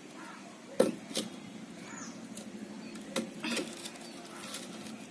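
Clay bricks set down and knocked against one another by hand as a brick stove is stacked: a few sharp knocks, the loudest just under a second in, with lighter ones later.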